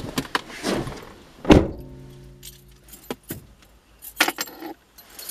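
A car door slammed shut about a second and a half in, followed by a short steady tone. Near the end a person is handling car keys, jangling and clicking, before starting the car.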